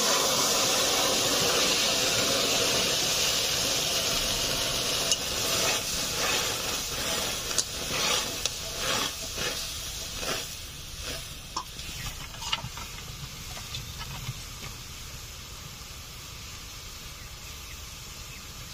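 Cooked masoor (red lentil) dal poured into a kadai of hot mustard-oil tempering with dried chillies and mustard seeds, sizzling loudly at first and then dying down steadily. From about five seconds in, a spatula clicks and scrapes against the pan as it is stirred.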